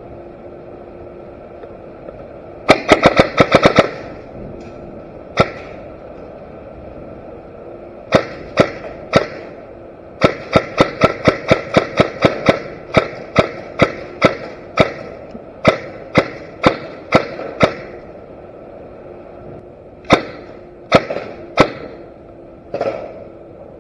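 Airsoft gun shots: a rapid burst of about eight shots about three seconds in, then scattered single shots, then a long run of shots several a second, and a few more near the end.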